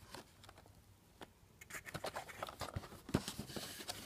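Cardboard figure box handled by hand: faint rubbing and scraping with small clicks as its end is opened, starting about halfway through, with one sharper tap a little later.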